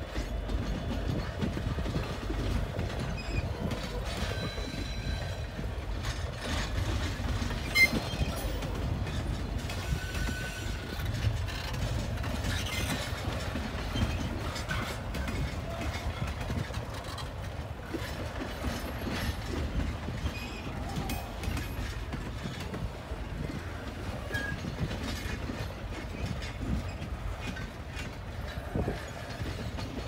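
Double-stack intermodal freight cars rolling past: a steady rumble of steel wheels on rail with a running patter of clicks and clanks, and one sharp clank about eight seconds in.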